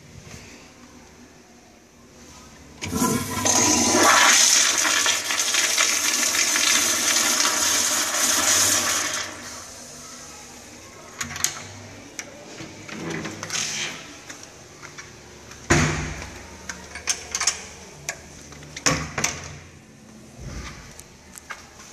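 American Standard Madera 1.6 gpf commercial toilet flushing: a loud rush of water that starts sharply about three seconds in, runs for about six seconds, then tails off. After it comes a string of sharp clicks and knocks from the stall door latch being worked.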